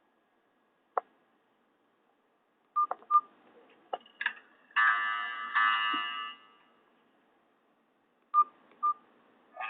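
Nokia 216 mobile phone's keypad beeps and button clicks as its menu is worked, with pairs of short beeps about three seconds in and again near the end. A brief snatch of a tone plays about five seconds in and stops after about a second and a half.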